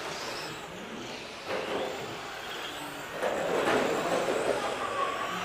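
Radio-controlled touring car running, with a whirring motor and tyre noise that swells about a second and a half in and again from about three seconds.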